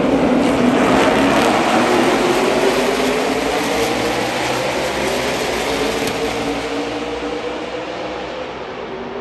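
A pack of NASCAR stock cars' V8 engines running as the field passes in formation, many engines overlapping, loudest early on and then steadily fading as the pack moves away.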